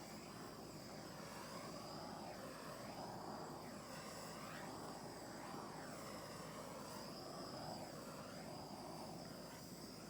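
Handheld torch flame hissing steadily as it is swept back and forth over a wet acrylic pour, giving it a light torching to bring up cells. The hiss shifts in tone with each sweep.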